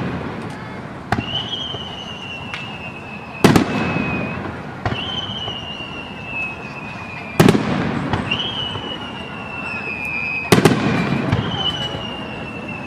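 Aerial fireworks shells bursting with sharp booms every few seconds. After several of the bursts a high whistling tone slowly falls in pitch.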